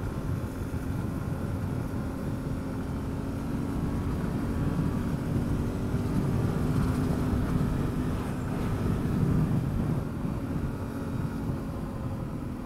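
Adventure motorcycle engine running at a steady cruise on a gravel road, over the rumble of wind and tyres on gravel; it grows a little louder through the middle and eases near the end.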